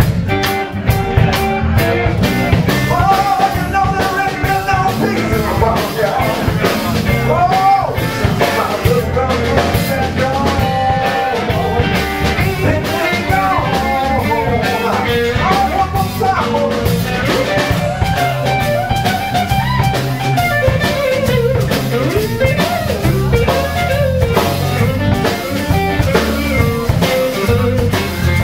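Live blues band playing: electric guitars, electric bass and drum kit in a slow, steady groove, with bent lead notes over the top.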